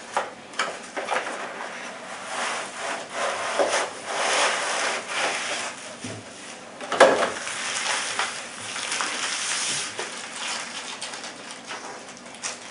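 Cardboard box and plastic packaging rustling and scraping as a rifle scope is slid out of its box and unwrapped, with one louder thump about seven seconds in.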